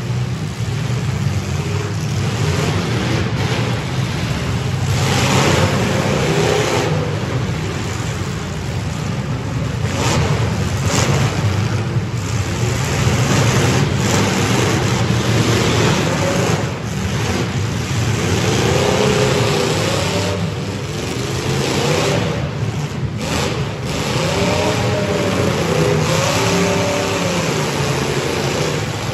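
Several full-size demolition derby cars' engines revving hard together, their pitch swinging up and down again and again, with occasional crashes of car bodies hitting each other. The sound echoes inside an enclosed arena.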